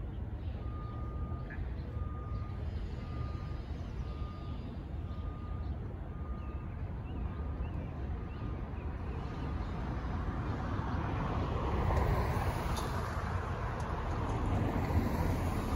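Cars driving over the railroad crossing, their tyre and engine noise swelling from about ten seconds in. Before that, a short electronic beep repeats about once a second and fades out.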